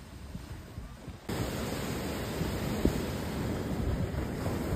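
Ocean surf washing on the shore, with wind buffeting the microphone; the noise jumps louder about a second in. A single short knock stands out near the middle.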